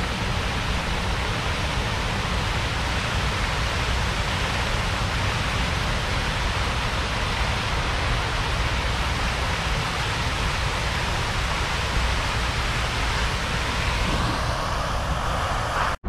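Steady rushing hiss of Buckingham Fountain's water jets and sprays splashing into the basin, with a low rumble underneath.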